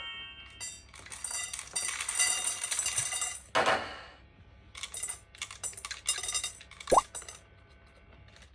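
Cat food being served into metal bowls: repeated clinks against the bowls, each leaving a high ringing tone, with a short rattling burst midway.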